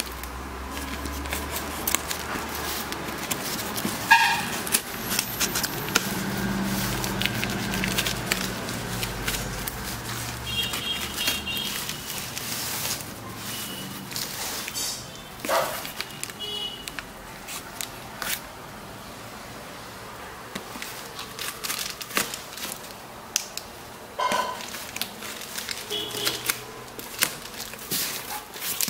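Knife blade slitting plastic packing tape on a cardboard box: scratchy scraping and crackling tape with scattered sharp clicks and knocks, and cardboard flaps being pulled open near the end.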